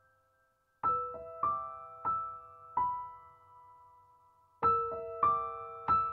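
Soft background piano music: notes struck a few at a time, each left to ring and fade. The music begins just under a second in after a brief near-silent pause.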